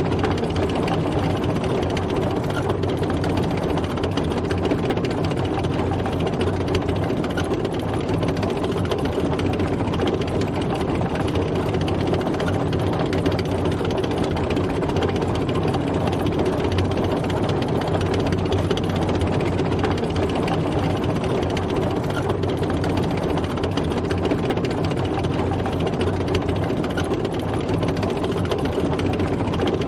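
Tank driving, its engine running steadily under a continuous mechanical drone with no change in pace.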